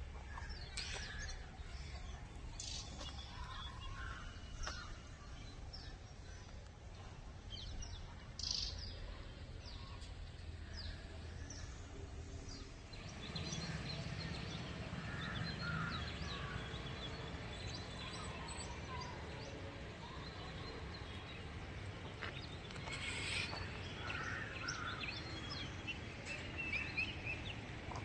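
Birds chirping repeatedly in short calls over a steady low background rumble.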